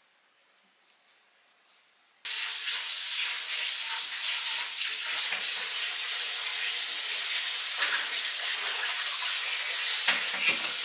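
Near silence, then about two seconds in a loud, steady rushing hiss starts abruptly and carries on unbroken.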